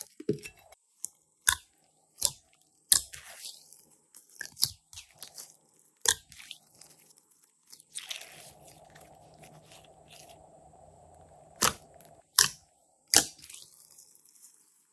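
Glossy slime being squeezed and pressed by hand, giving sharp, irregular crackling pops and clicks.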